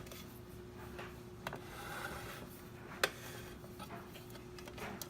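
Quiet handling noises: light rubbing with two short clicks, about a second and a half in and about three seconds in, over a faint steady hum.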